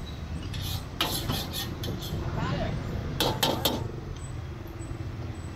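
Night street-food market ambience: a steady low hum of traffic under background voices, with a few sharp clinks of kitchenware, one about a second in and a quick cluster a little after three seconds.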